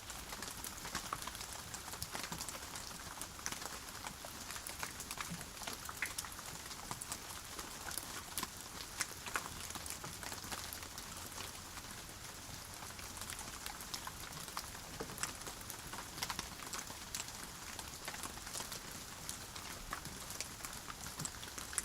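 Steady rainfall, a constant hiss with many individual drops pattering and ticking on a surface.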